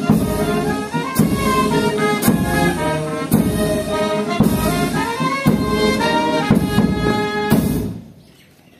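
Brass band music with a slow beat, a heavy stroke about once a second under held brass notes; it stops about eight seconds in.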